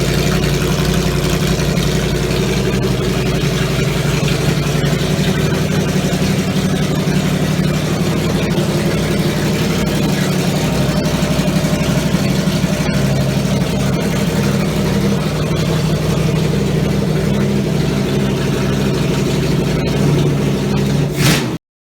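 Rebuilt Triumph Stag 3.0-litre V8 running steadily at idle on an engine test stand, exhausting through short front exhaust pipes only, with its carburettors freshly adjusted. The sound cuts off suddenly near the end.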